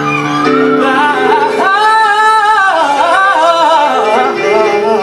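Live song: a high, falsetto-like voice sings long notes with wide vibrato over sustained chords in a large hall.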